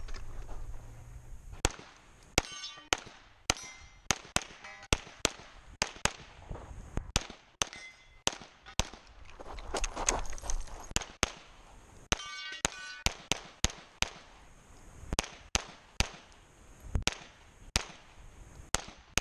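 Rapid pistol fire during a timed competition stage: about thirty shots in quick pairs and strings. Some shots are followed by the ring of hit steel targets. There is a short break in the firing near the middle, where the pistol is reloaded.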